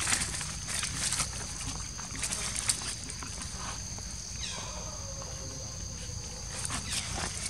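Baby monkeys scuffling in dry leaves, with a short falling squeal from one of them about halfway through and another near the end, over a steady high insect drone.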